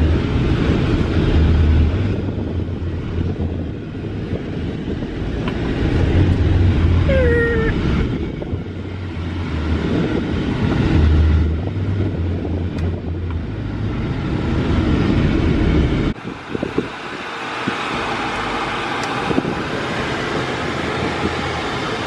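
Car cabin noise while driving: wind gusting through the cabin and over the microphone in a low, uneven, pulsing rumble, over steady tyre and road noise. About 16 seconds in, the rumble drops away and leaves a steadier road hiss.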